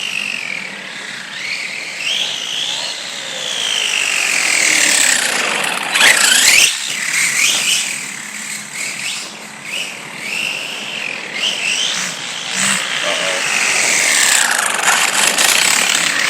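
Arrma 3S BLX RC car's brushless motor and drivetrain whining, the pitch rising and falling again and again with bursts of throttle. It is running on a 3D-printed PLA spur gear, and the gear mesh is loud.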